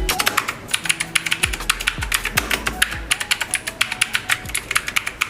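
Typing on a mechanical keyboard fitted with PBT dye-sub Cherry-profile keycaps: rapid keystroke clacks, several a second. Background music with deep, falling bass notes plays underneath.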